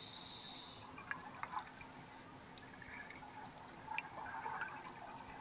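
Underwater sound from a scuba dive: exhaled bubbles from a diver's regulator gurgling and hissing faintly, with a few small clicks, the sharpest about four seconds in.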